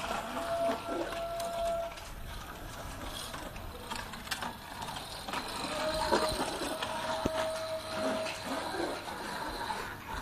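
A small child's bicycle rolling and rattling over a concrete rooftop, with a few sharp clicks. Twice a long steady tone sounds, once near the start and again for a few seconds in the middle.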